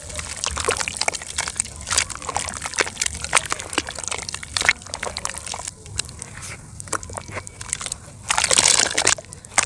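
Hands squeezing and crumbling lumps of wet dirt in a bucket of muddy water: squelching and sloshing with many small crackles, and a louder swish of water about eight seconds in as the hands plunge deep into the bucket.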